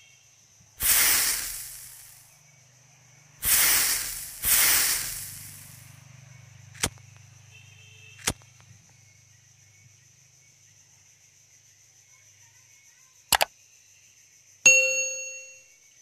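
Three short rushing swooshes, a few sharp clicks, then a single ringing ding near the end that fades over about a second.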